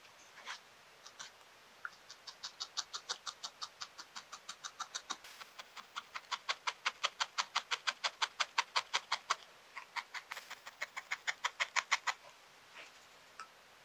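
Barbed felting needle stabbing wool into a felted wool ball: a rapid, even run of crisp crunching pokes, about four a second, with a short break partway through.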